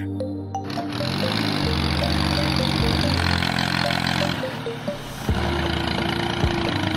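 Background music with a steady whirr over it, likely the small DC motor of the miniature water pump running.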